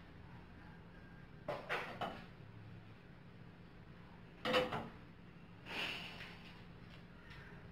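Kitchenware clattering: a white bowl and a steel cooking pot knocking together on the stove. A few quick knocks come about a second and a half in, the loudest clank about halfway through, and a rougher clatter soon after.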